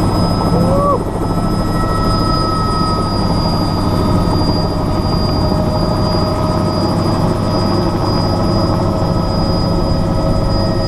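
Helicopter in flight: the steady, loud noise of its engine and rotor, with a constant high whine over it.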